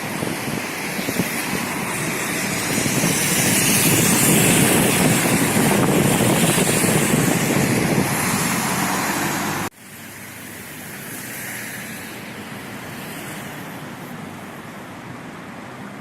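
Steady vehicle noise, loud at first, then cutting off abruptly about ten seconds in to a quieter steady rumble.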